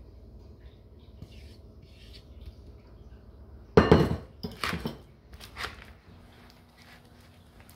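A kitchen utensil clanking against cookware as cake batter is scooped into baking pans: one loud clank about four seconds in, then a few lighter knocks over the next two seconds.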